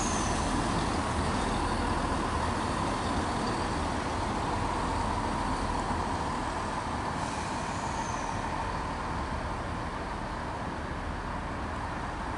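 CrossCountry Class 170 Turbostar diesel multiple unit moving slowly through the station, its steady engine and wheel noise easing off towards the end. Two brief high, falling squeals come just after the start and about seven seconds in.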